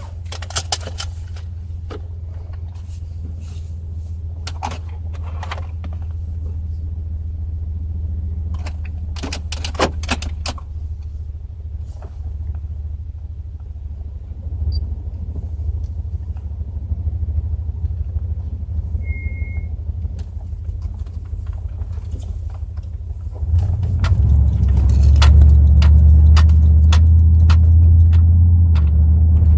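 Pontiac Grand Prix GXP's 5.3-litre LS4 V8 with a Flowmaster exhaust running steadily, with scattered clicks and a short beep. About 23 seconds in, the engine gets much louder and deeper, as under acceleration.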